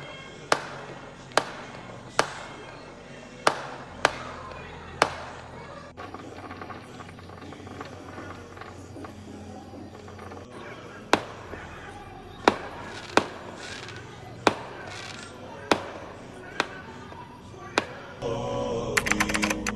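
Firecrackers going off: a string of single sharp bangs at uneven intervals, a pause of several seconds in the middle, then more bangs.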